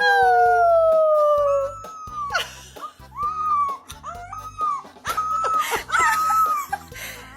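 A dog howling: one long howl sliding down in pitch, then a run of shorter howls.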